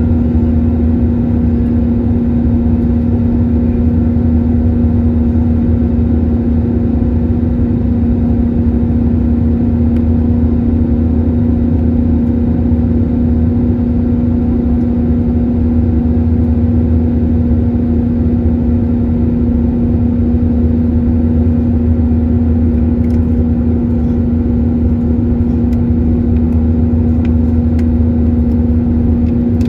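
Steady drone of an Airbus A321-231 in flight, heard inside the cabin: its IAE V2500 engines and rushing air make a deep rumble with an unchanging hum at one pitch on top.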